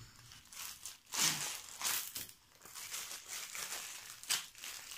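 Clear plastic wrapping crinkling in the hands as it is unwrapped, in a few short rustles, the loudest about a second in.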